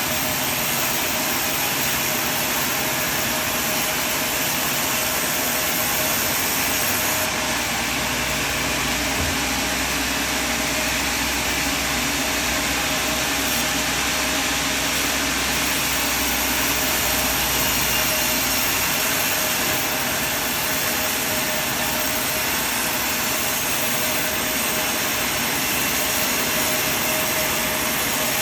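A sawmill running: a steady machine drone with a constant whine, joined by a deeper low hum from about 7 to 19 seconds in.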